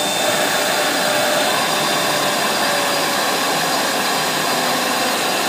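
Jingwei RC03 cutting machine running: a steady rushing drone from its 2.2 kW vacuum hold-down blower and milling spindle, with a faint high whine over it.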